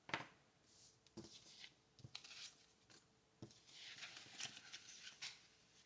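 Faint paper handling at a planner: a few light taps and soft rustling of paper and sticker sheets, with a longer stretch of rustling about four seconds in.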